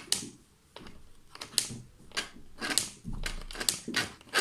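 Irregular sharp clicks and knocks of plastic game boards and pieces being handled, a few a second, coming faster in the second half.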